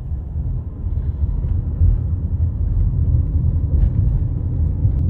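Steady low rumble of a car's road and engine noise heard from inside the moving car.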